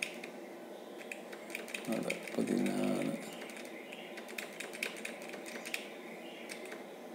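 Computer keyboard keys clicking in quick, irregular taps, several a second, as arrow keys step a slider value down. A short voiced sound comes about two seconds in.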